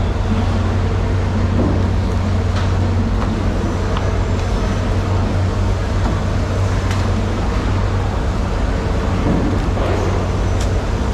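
Steady low machine hum under a wash of background noise, with a few light clicks and knocks scattered through.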